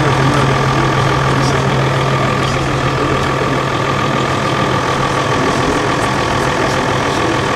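Steady mechanical hum over a constant hiss. The lowest part of the hum drops off about three seconds in.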